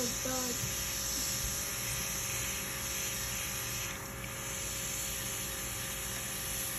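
Pistol-grip airbrush and its compressor running: a steady hum under a strong, even hiss of air and paint spraying from the nozzle, which eases off briefly about four seconds in.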